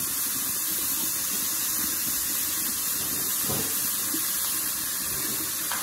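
Block of raw ground beef sizzling in a hot pot: a steady, even hiss, with a faint knock about halfway through.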